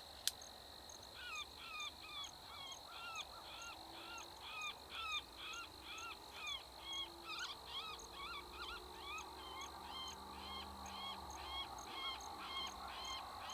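Electronic predator call playing a bird distress sound on a loop: a steady string of honking squawks, a little over two a second, starting about a second in. A single sharp click sounds just before it begins.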